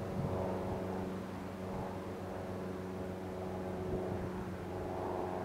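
Boat engine running steadily: a low, even hum with several steady tones above it.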